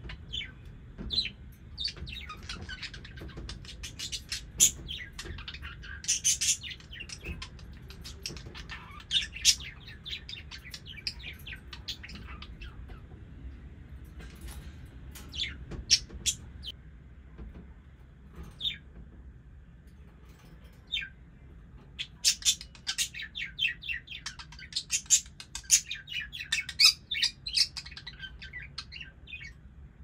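Budgerigars chirping and warbling in quick runs of short, sharp chirps, thinning out to a few scattered chirps midway and then picking up again into a dense run.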